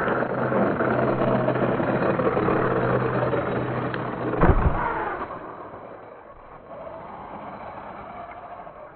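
Brushless-powered Arrma Typhon 6S BLX RC buggy running hard on a dirt jump, its motor and drivetrain loud and busy. A single deep thump comes about halfway through, and the sound then falls much quieter.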